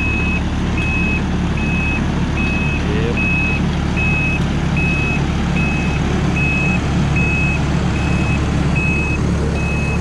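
Prime Tech PT175 tracked forestry mulcher reversing: its backup alarm beeps evenly, about once every three-quarters of a second, over the steady running of its Cummins diesel engine.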